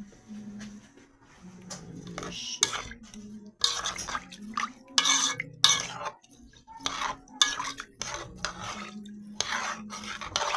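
A spoon stirring rice and water in a cooking pot, scraping against the pot in a series of irregular strokes to loosen the rice stuck to the bottom, over a low steady hum.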